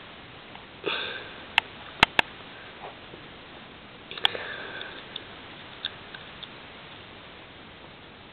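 Pen tips tapping and ticking on paper as numbers are written, with a few sharp clicks a second or two in. Two short sniffs come about a second in and about four seconds in.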